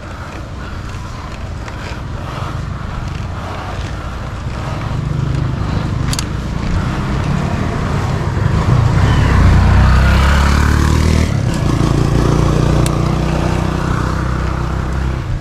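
A motor vehicle's engine running, growing louder about five seconds in and loudest around ten seconds in before easing slightly.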